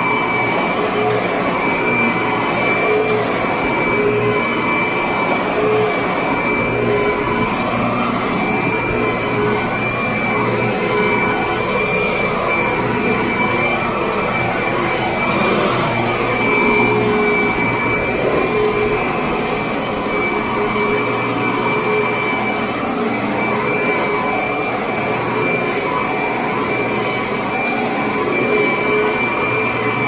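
Kirby upright vacuum cleaner running steadily while pushed over carpet: a continuous motor drone with a constant high whine.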